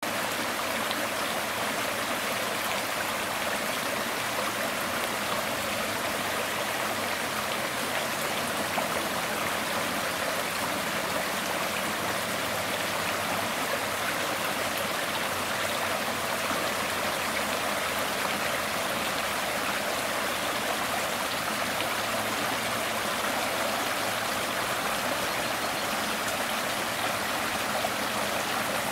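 Shallow rocky stream flowing over and between stones, a steady rush of water.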